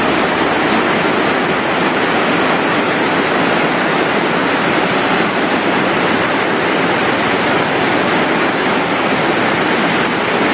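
Steady, even rush of water in a typhoon flood, from heavy rain and flowing floodwater.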